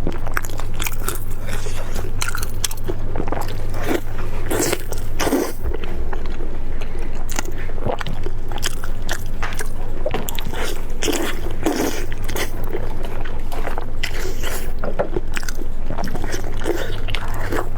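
A person biting and chewing food close to the microphone, with irregular crunchy bites and smacking mouth sounds, over a steady low hum.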